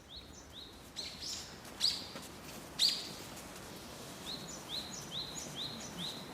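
A small songbird calling, with a run of short rising chirps repeated about three times a second, starting and stopping twice. A few louder, sharper notes come in the first three seconds.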